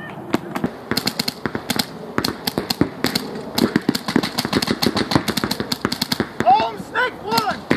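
Paintball markers firing in rapid, irregular strings of sharp pops from several players, with a player shouting near the end.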